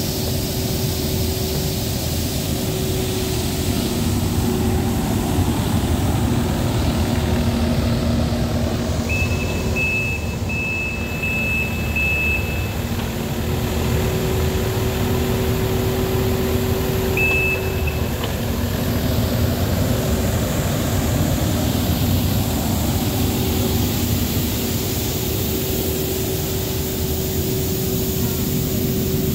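Mathieu Azura compact street sweeper running, its engine giving a steady hum with two held tones while its rotating side brushes scrub a concrete floor. A high electronic beep sounds in a short run of pulses about nine seconds in and once more around seventeen seconds.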